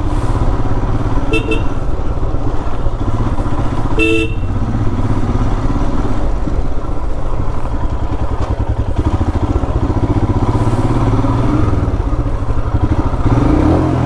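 Motorcycle engine running steadily as the bike is ridden, heard from the rider's position. A vehicle horn sounds briefly twice, about one and a half and four seconds in; the second is the louder.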